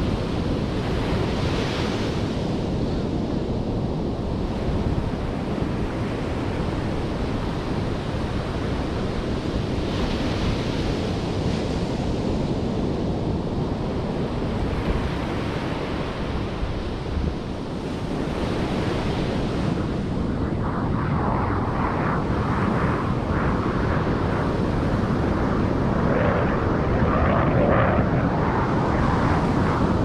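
Ocean surf breaking and washing up a sandy beach, each wave bringing a swell of hiss about every nine seconds, over steady wind noise on the microphone. A rougher, louder noise builds over the last third.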